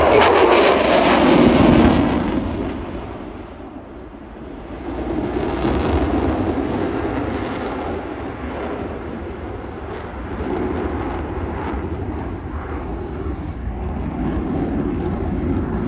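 Jet engine noise from an F-35B's single F135 turbofan during a slow-speed pass, loudest in the first two seconds, dipping about four seconds in, then a steady rumble.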